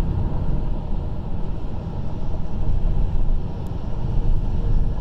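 Steady low rumble of road noise inside a car travelling at highway speed.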